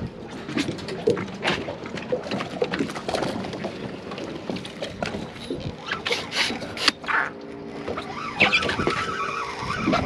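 Scattered knocks and clatter of gear being handled on a fiberglass boat as a landing net is fetched and readied over the side.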